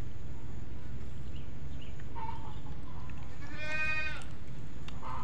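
A goat bleats about three and a half seconds in: one wavering call of under a second. Fainter short calls come a little earlier and again near the end. A steady low rumble runs underneath.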